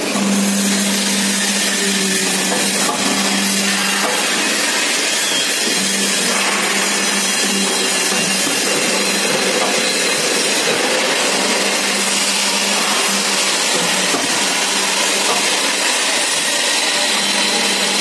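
Roof-sheet crimp curving machine running steadily, its motor humming while the crimping rollers work a colour-coated metal sheet into a curve, over a dense hiss. The hum breaks off for about two seconds a few seconds in, then returns.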